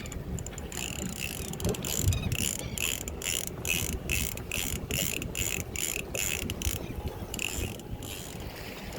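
Fishing reel ratcheting in quick even pulses, about three a second, as a hooked shark pulls on the line. The pulses start about a second in and stop near the end.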